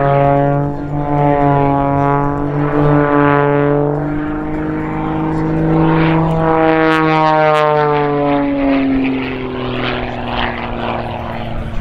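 Pitts aerobatic biplane's piston engine and propeller running hard through a dive and pull-out. The drone's pitch sinks, climbs, then falls away again as the plane passes, with a rushing noise near the end.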